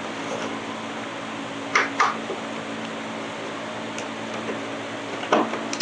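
Hand tools clinking on the generator's metal covers and bolts during reassembly: two short clinks about two seconds in and another near the end, over a steady low hum.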